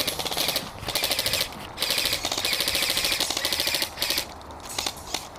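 Airsoft rifles firing full-auto in several rapid bursts, the longest lasting about two seconds, with a short burst near the end.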